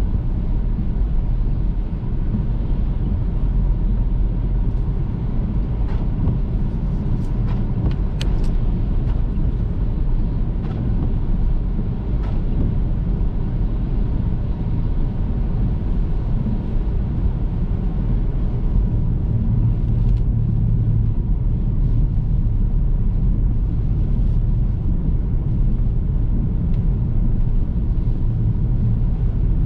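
Car driving along a road: a steady low rumble of tyres and engine, with a few light sharp taps between about six and twelve seconds in.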